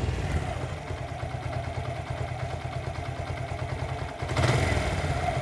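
Suzuki Gixxer's single-cylinder engine idling steadily, briefly louder for a moment about four seconds in. It runs smoothly with no clatter, a flawless sound after a fix for a clattering that had sounded like a broken bearing inside the engine.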